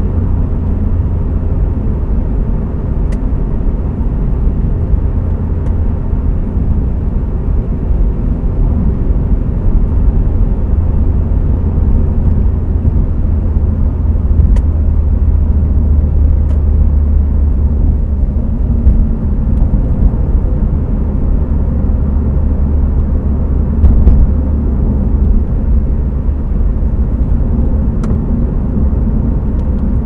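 Steady in-cabin road and engine noise of a Mitsubishi Lancer Evolution X (CZ4A) cruising at expressway speed: a deep, even low rumble with a few faint ticks.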